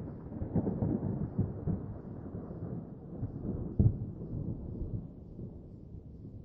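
Thunder rolling and rumbling low, with crackling claps and one sharper crack about four seconds in, then dying away near the end.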